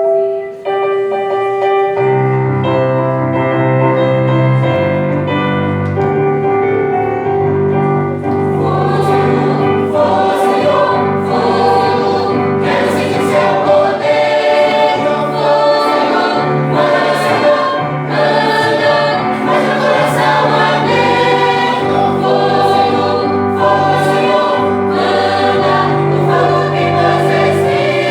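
A choir singing a gospel hymn with instrumental backing. It opens on sustained chords, with a bass line joining about two seconds in and a steady beat from about eight seconds in.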